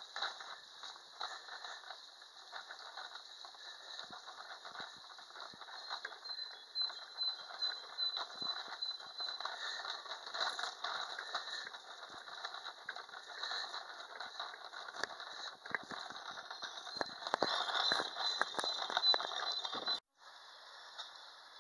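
Footsteps walking on a brick-paved footpath: irregular knocks and scuffs over a steady background hiss. The sound drops out for a moment near the end.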